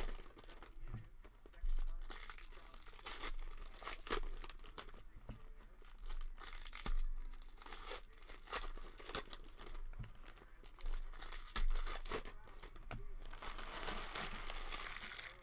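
Foil trading-card pack wrappers being torn open and crinkled by hand, in irregular rips and crackles.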